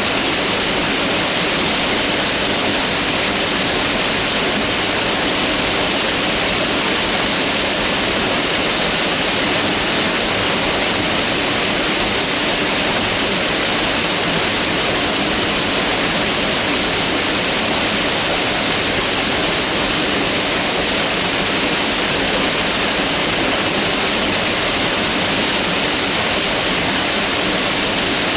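Mountain river rushing over rocks, a steady, even roar of water with no change.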